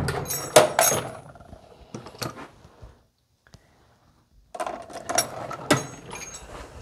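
Metal hand tools clinking and knocking together with short metallic rings, in two bursts with a quiet gap between them, as when rummaging in a drawer for a 10 mm wrench.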